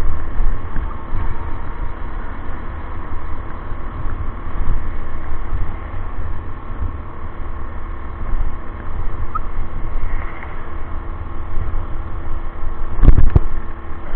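Wind rushing over the microphone while riding a 72V Cyclone e-bike fitted with a gas generator, over a steady hum of several held tones from the running machinery. A couple of loud thumps come near the end.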